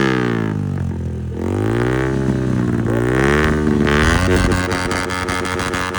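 Yamaha MT-15's 155 cc single-cylinder engine through an Akrapovic full-system exhaust, revved up and down in a few throttle blips, then settling to a steady idle about four seconds in.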